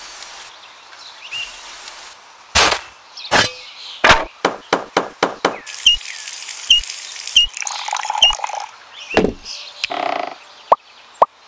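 A quick run of short craft sounds edited together: sharp knocks and scraping, then water pouring from a miniature hand pump's spout into a small pool.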